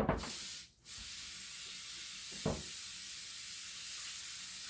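A clunk, then a steady hiss that starts abruptly about a second in and holds on, with one light knock midway.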